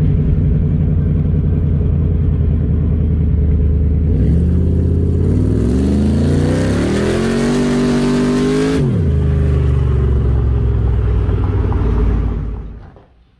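Factory Five Cobra replica's V8 engine under way: running steadily, then revving up for about five seconds as the car accelerates, dropping sharply in pitch at an upshift, and pulling on in the next gear before fading out near the end.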